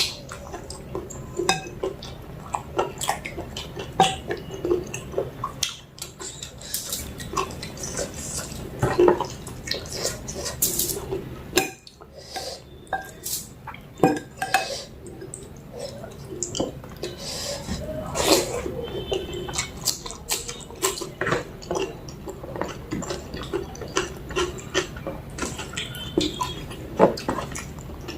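Eating sounds: wet chewing and mixing of mutton curry and rice, with many small clicks and clinks against the plate.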